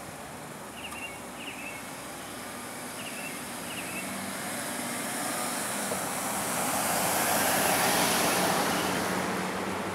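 A car passing on the street, its noise swelling to a peak about eight seconds in and then fading. A bird chirps a few times in the first four seconds.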